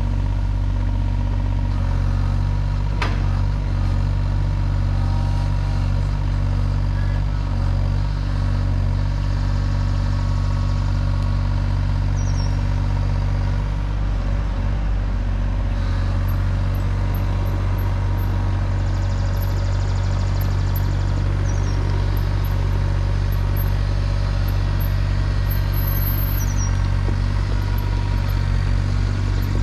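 Heavy-equipment diesel engine running steadily at one speed, with a single sharp knock about three seconds in and a fast low pulsing joining near the end.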